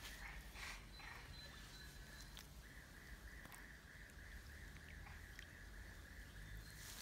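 Near silence: faint outdoor ambience with a distant animal's steady, slightly warbling high trill that starts a few seconds in, and a few faint ticks.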